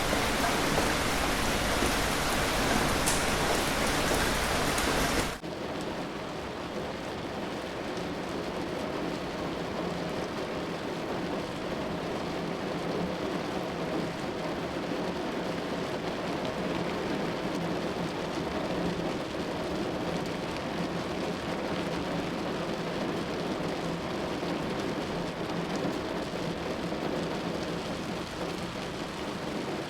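Steady rain sound effect, an even hiss of falling rain. About five seconds in it cuts abruptly from a louder, brighter downpour to a softer, duller rain that runs on steadily.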